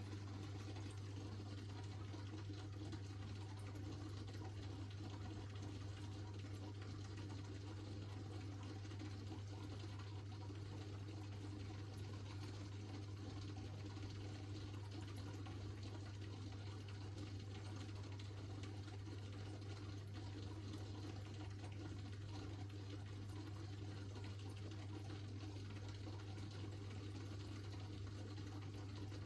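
Aquarium filter running: a steady low hum with moving water.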